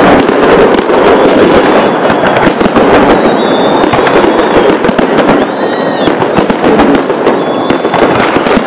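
Many fireworks going off at once: dense, continuous popping and crackling, with a few short high whistles in the middle.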